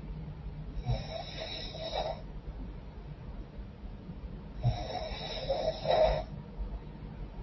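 A woman snoring in her sleep through a stuffed-up, runny nose: two long snores about four seconds apart.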